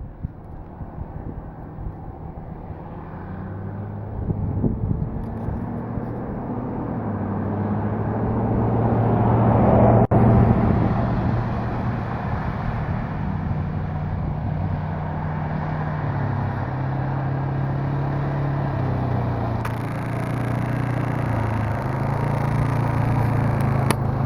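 Small off-road vehicle engine, likely a quad, running at part throttle as it is driven around. It grows louder as it comes closer, is loudest about ten seconds in, then runs steadily with its pitch wavering a little. It is said to be still running a little rich.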